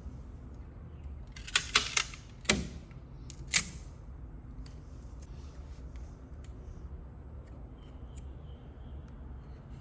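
Five sharp, hard clicks in quick succession in the first few seconds, three of them close together and one with a dull knock, over a steady low hum.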